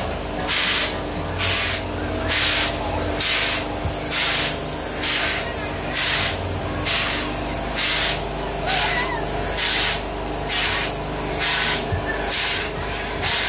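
Saltamontes fairground ride running at speed: a regular hissing whoosh about once a second, in time with the swinging gondolas.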